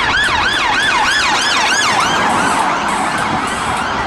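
British police car siren on yelp: rapid rising-and-falling sweeps, about three a second, clearest in the first half.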